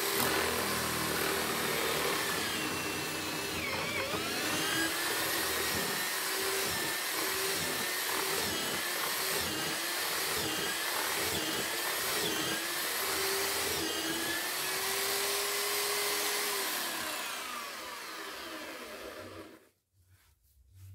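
Corded electric drill in a homemade wooden mortising jig running and boring into a wooden beam; its whine sags in pitch again and again as the bit is pushed into the wood. Near the end the drill winds down and stops.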